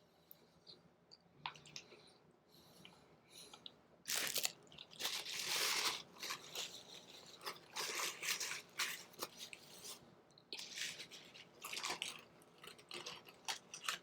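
A person chewing a mouthful of crispy breaded chicken sandwich close to the microphone: faint small mouth clicks at first, then irregular crunchy chewing from about four seconds in.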